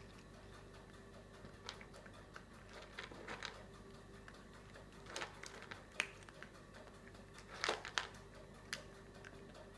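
A cat eating from a bowl: irregular chewing and crunching clicks, about one a second, with a louder cluster near the end, over a faint steady hum.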